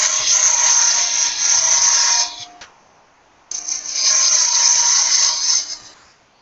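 Thin parting tool cutting into a cocobolo duck-call blank spinning on a wood lathe, in two cuts of about two seconds each with a short pause between, where the lathe runs on quietly. The cuts form a small lip for a call band to seat against.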